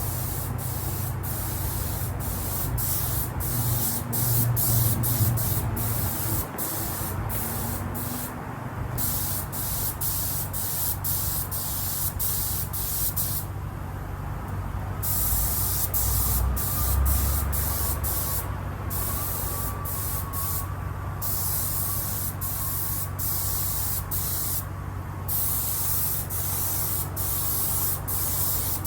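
Compressed-air spray gun hissing in repeated short bursts as the trigger is pulled and released, spraying water-based leather paint, over a steady low hum.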